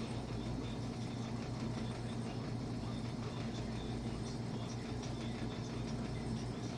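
Steady low hum of room tone, even and unchanging, with no distinct events.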